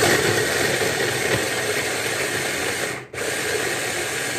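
Braun hand blender's motor running on its chopper attachment, chopping vegetables: a loud steady whirr that cuts out briefly about three seconds in and then starts again.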